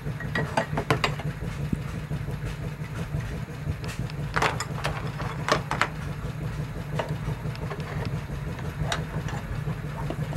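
A steady low engine hum from old stationary engines running, with a few sharp metallic clinks as steel spokes are gripped with tongs, lifted from a tub of liquid and set down in a plastic tray.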